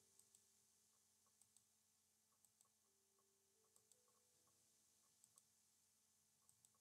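Faint computer mouse clicks in quick pairs, six pairs spaced a second or so apart, over a faint steady hum.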